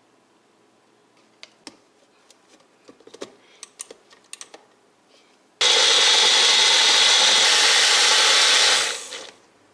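Small personal blender grinding fried onion, tomato, garlic and ginger into a paste without water: the motor starts abruptly about halfway through, runs steadily and loudly for about three and a half seconds, then winds down. Before it, a few light clicks and knocks as the filled cup is handled and pressed onto the motor base.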